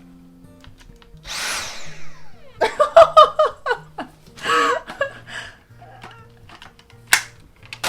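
Background music with a steady bass line, with short bursts of noise and brief voice-like sounds over it in the first half and a sharp click near the end.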